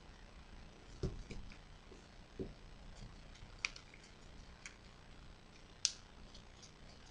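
Origami paper being folded and creased by hand on a tabletop: faint scattered crinkles and rustles, two soft thumps early on, and a few sharp crisp clicks, the loudest about six seconds in.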